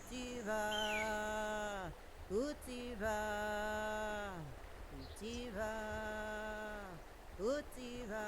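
A woman singing a slow chant in long held notes, each phrase sliding down in pitch at its end, about three phrases, with short rising whoops between them. A brief high falling whistle sounds near the start and again at the end.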